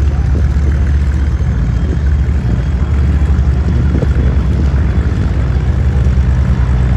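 Radial engine of a single-engine propeller warbird running steadily at low power as it taxis, a deep, rapid, even throb.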